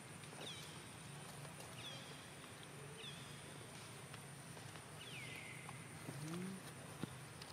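A few short, high animal chirps, each sliding down in pitch, spaced about a second or two apart, with a lower rising call near the end, over a faint steady high whine.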